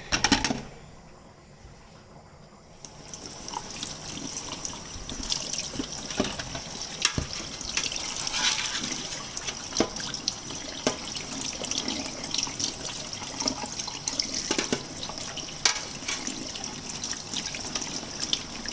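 A knock, then about three seconds in a tap starts running and keeps running, with scattered small clicks, as a clogged dishwasher filter is rinsed under it.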